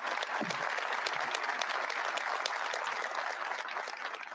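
Audience applauding, many hands clapping at once, dying away near the end.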